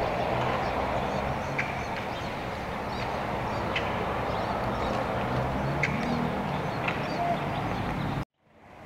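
Steady outdoor ambience: an even hiss over a low hum, with a few short high chirps about two seconds apart. It cuts off abruptly near the end.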